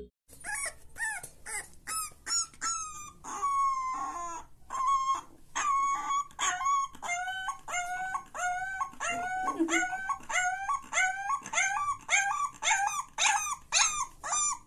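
Corgi puppy howling in a long run of short, high, wavering yelps, about two a second.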